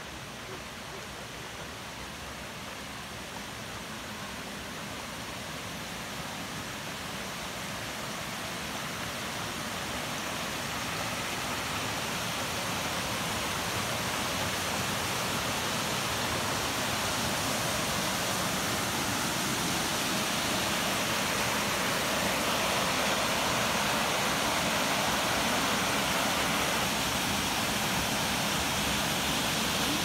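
Waterfall and creek water rushing: an even hiss that grows louder over the first dozen seconds, then holds steady.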